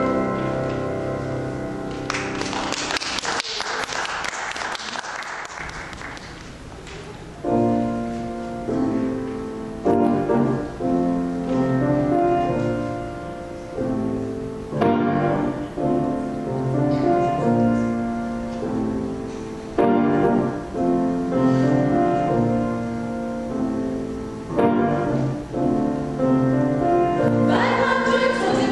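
A small mixed vocal ensemble singing in harmony. A phrase ends about two seconds in, followed by a few seconds of fading applause, and the group starts singing again about seven seconds in, in phrases with short breaths between them.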